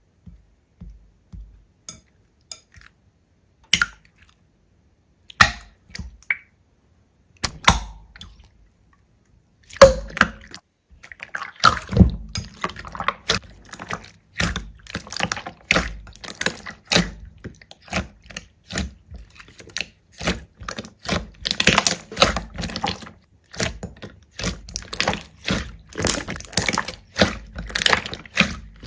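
Hands squeezing and poking slime, making wet, sticky clicks and pops. The clicks come one at a time at first, then about ten seconds in become a dense, continuous crackling.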